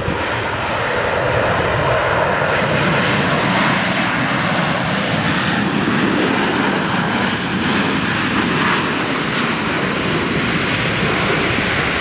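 Landing jet airliner's engines: a loud, steady rush of noise that builds over the first couple of seconds and then holds as the plane passes close by on the runway.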